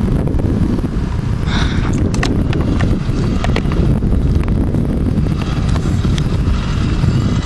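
Wind buffeting the microphone in a steady low rumble, with scattered sharp clicks and taps over it.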